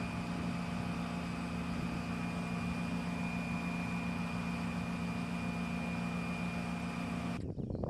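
Steady mechanical hum with a thin high whine from running machinery, holding an even level and cutting off suddenly near the end.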